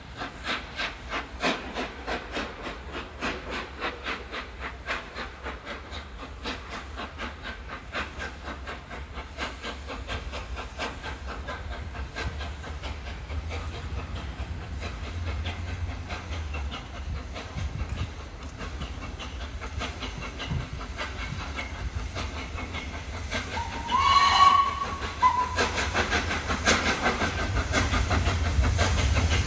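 LNER A3 Pacific 60103 Flying Scotsman, a three-cylinder steam locomotive, approaching with rapid, even exhaust beats that grow louder as it nears. A short steam whistle blast sounds a few seconds before the end.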